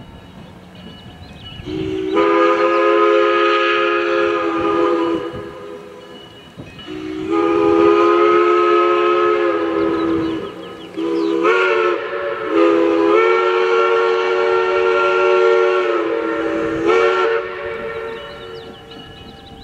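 Train horn, a chord of several notes, sounding the grade-crossing signal: two long blasts, a short one and a final long one.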